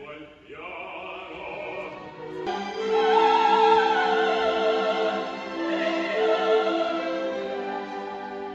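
Operatic singing with orchestra. The music turns abruptly fuller and louder about two and a half seconds in, with a wavering sung line over held notes.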